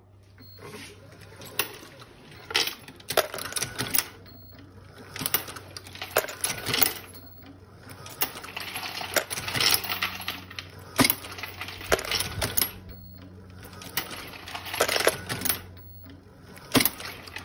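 Dillon 1050 progressive reloading press driven by an Ammobot Rev 3, cycling automatically while loading .223 cartridges. A steady low hum runs under repeated clusters of sharp metallic clicks and clinks of brass cases every few seconds.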